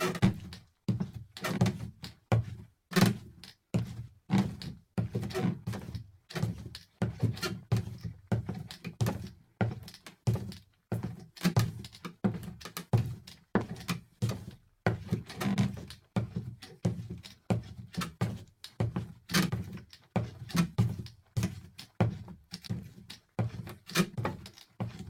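Sneaker footsteps walking at a normal, even pace on a timber floor: dull thuds at about two steps a second.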